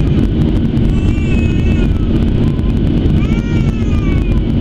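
Steady, loud cabin noise of a Boeing 737-700 in flight, the roar of its CFM56-7B engines and the airflow heard from a window seat over the wing. Over it, a high cry that rises and falls in pitch comes twice, about a second in and again after three seconds.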